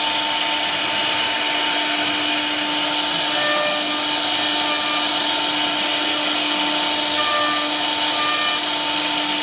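CNC wood router running steadily: a constant machine whine and hum over a hiss, with short higher tones coming and going.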